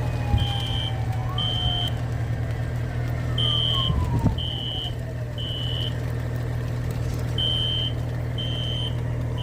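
Building fire alarm sounding its evacuation pattern: three high, even beeps about a second apart, a pause, then three more, repeating, over a steady low hum. It is a false alarm, set off by water dripping onto the main fire alarm panel.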